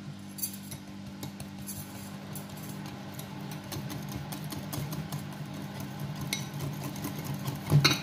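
Small wire whisk stirring through a creamy mixture in a ceramic bowl, its wires ticking and clinking irregularly against the bowl, over a steady low hum. A louder knock comes near the end.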